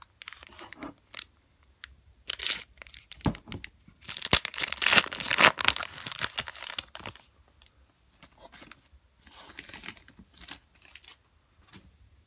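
Foil wrapper of a trading-card pack being torn open and crinkled, with two sharp snaps about three and four seconds in. The crackling is loudest from about four to seven seconds in, then fainter crinkles follow.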